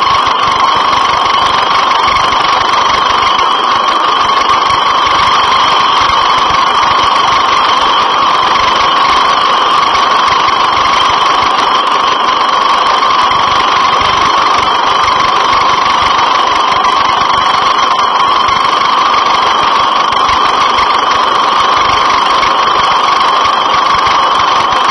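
Helicopter running loud and steady, a constant whine over a rapid low pulsing from the rotor.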